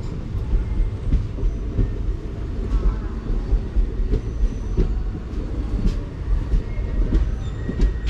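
West Coast Express passenger train running on the rails: a steady low rumble with irregular wheel knocks and clatter, and a few faint, brief squeals.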